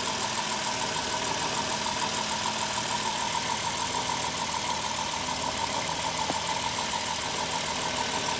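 A 2005 Dodge Caravan's 3.8-litre V6 idling steadily on a new alternator and serpentine belt, with the charging system putting out 14 volts.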